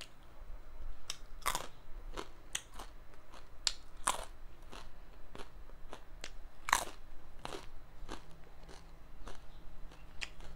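Close-miked biting and chewing of a crunchy fried snack: a string of irregular sharp crunches, the loudest about a second and a half, four and nearly seven seconds in, with softer chewing between.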